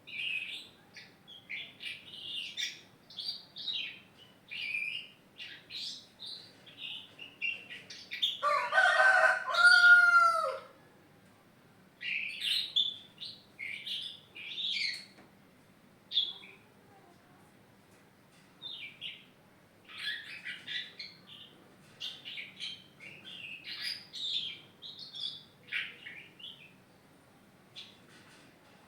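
A young pet songbird, about four months old and not yet moulted, singing in short, quick chirpy phrases that come and go all through. About eight seconds in, a rooster crows once for about two seconds, falling in pitch at the end, louder than the song.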